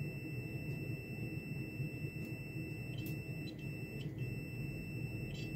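Digital multimeter's continuity beeper sounding a steady high-pitched beep as the probe tips are held together, with faint clicks and brief dropouts where the tips lose contact: the sign of an intermittent connection at the oxidised probe tips.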